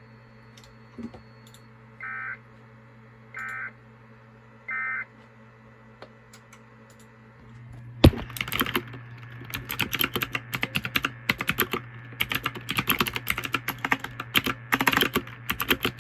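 Three short Emergency Alert System end-of-message (EOM) data bursts, the two-tone digital code that closes the alert, about a second apart. Then, from about halfway, fast computer-keyboard typing, the loudest sound. A steady low hum runs underneath.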